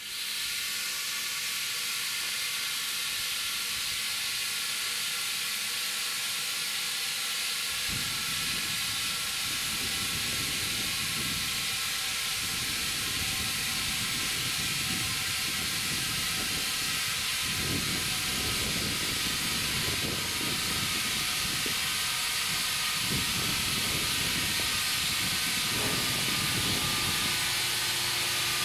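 Steady loud hiss of compressed air rushing into a 20.8R38 Firestone tractor inner tube being inflated. A low rumbling joins about eight seconds in, and a low steady hum starts near the end.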